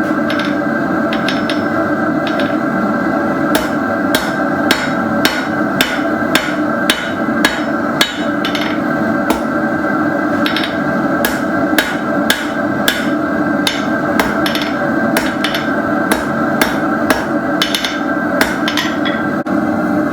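Hand hammer striking 3/8-inch round steel stock on an anvil, about two to three blows a second with short pauses, each blow ringing briefly. A steady loud drone runs underneath.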